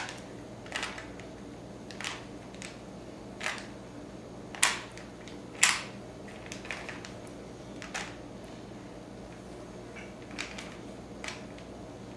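Plastic Rubik's Cube being twisted by hand, giving irregular clicks and short rasps as its layers turn, about a dozen in all, with the two loudest near the middle.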